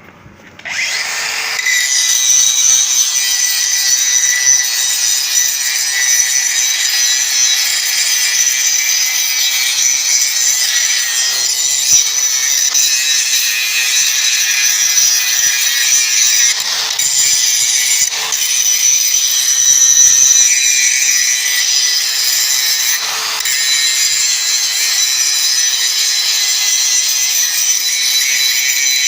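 DeWalt DCG414 FlexVolt 54-volt cordless 125 mm angle grinder starting up under a second in, then grinding a weld seam continuously. A loud, high grinding hiss sits over the motor's steady whine.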